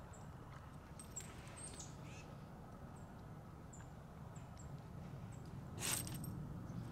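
Faint outdoor ambience: short, high bird chirps repeat roughly once a second over a low steady rumble. One brief, harsh noise about six seconds in is the loudest sound.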